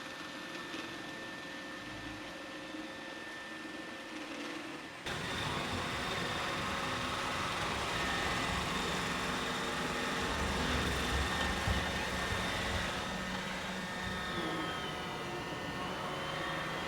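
iRobot Roomba 880 robot vacuum running with a steady whirring hum. About five seconds in, it abruptly gets louder and fuller.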